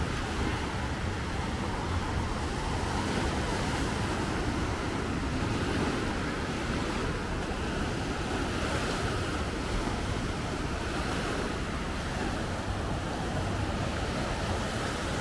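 Small sea waves breaking and washing up a sandy beach in a steady, surging hiss, with wind rumbling on the microphone.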